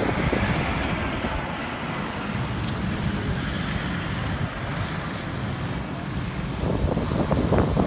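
Fire truck diesel engines driving past: a heavy pumper close by, then a light tanker following, a steady low engine rumble with tyre noise and no siren.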